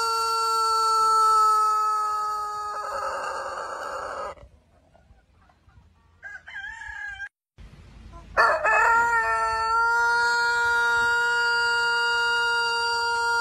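Rooster crowing, holding one very long drawn-out note that breaks into a rasp and stops about four seconds in. After a pause with a few short higher calls, another long, steady crow starts about eight seconds in.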